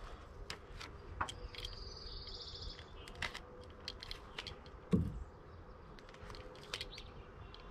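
Light handling clicks and taps from a utility knife and a roll of flashing tape. A dull thump about five seconds in, as the roll of ZIP System tape is set down on the sill, is the loudest sound.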